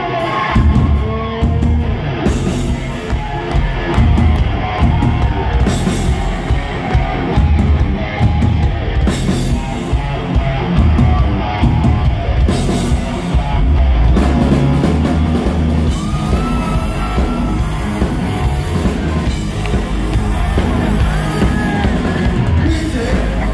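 Loud rock music with a drum kit, heard through the sound of a concert hall.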